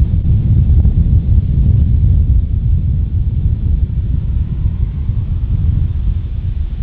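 Low rumble of a Boeing 787-8's two GEnx-1B turbofans at taxi power as the jet lines up for takeoff, under heavy wind buffeting on the microphone.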